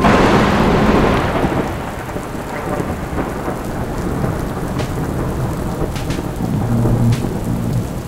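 A thunderclap crashing in suddenly and fading away over about two seconds, followed by steady rain with a few sharp drips.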